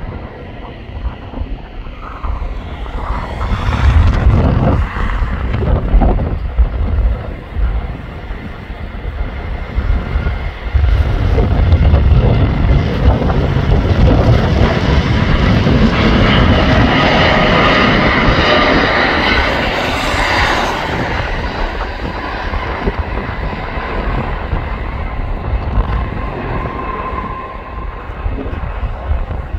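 Boeing 787-9 Dreamliner's turbofan jet engines at takeoff thrust. The roar builds over the first seconds as the jet accelerates down the runway. It is loudest about halfway through as the aircraft passes, with a whining buzz over the rumble, then eases a little as it rotates.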